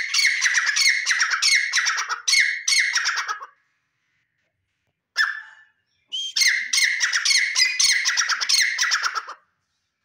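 Male grey francolin calling: two loud runs of rapid repeated notes, about three seconds each, with a single short note between them.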